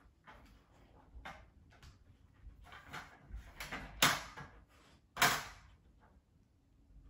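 Dogs nosing at a plastic puzzle feeder: its plastic pieces clack and scrape in a run of short knocks, two of them much louder, about four and five seconds in.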